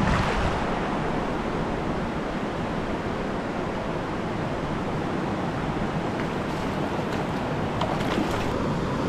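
Rushing water of a mountain stream running over rocks, a steady wash of noise. A few light clicks sound about eight seconds in.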